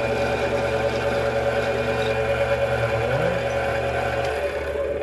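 Mini metal lathe running steadily with a motor whine during a cutting pass, then winding down and stopping near the end.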